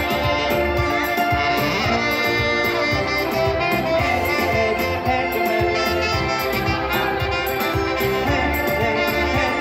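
Live band music with saxophone over a steady drum beat, playing without a break.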